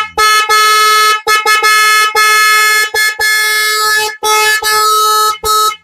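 ATIF wind-tone electric horn sounding in about a dozen on-off honks, some short and some held nearly a second, each with a steady clear pitch. Its adjustment screw has just been loosened to tune it, and the tone is now clear.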